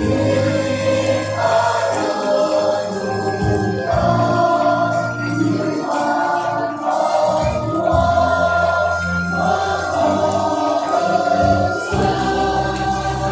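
A choir singing in long held notes that step from pitch to pitch.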